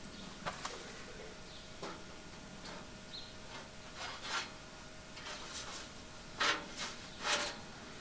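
Sheet-metal windscreen panels of a gas cooking table being handled and slotted onto the table frame: scattered clicks, scrapes and rustles, loudest about six and a half and seven and a half seconds in.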